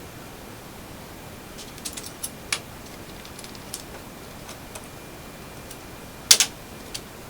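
Scattered light clicks and taps: a quick run of them about two seconds in and a louder pair of knocks about six seconds in.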